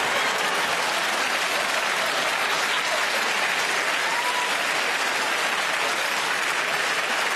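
Studio audience applauding: a sustained, even round of clapping that holds steady throughout.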